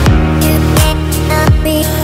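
Electronic background music with a deep kick drum hitting about every three-quarters of a second under held tones.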